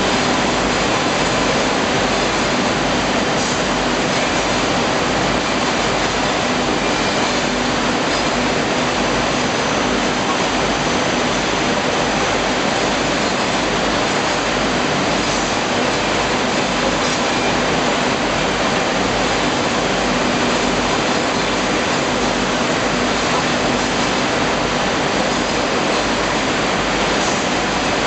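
Dough-handling line running: the plastic modular belt conveyor and surrounding bakery machinery make a loud, steady rushing noise with a faint low hum, unchanging throughout, with no distinct knocks.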